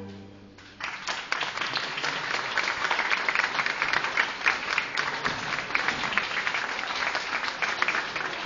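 People applauding, the clapping breaking out suddenly about a second in, just after bowed string music stops, and keeping up steadily.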